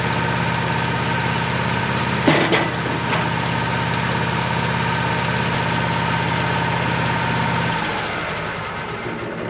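Sawmill engine running steadily with a high whine, just after a cut. There are a couple of knocks between two and three seconds in. Near the end the engine and whine wind down together.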